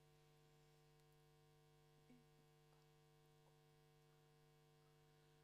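Near silence, with a faint steady electrical hum from the sound system.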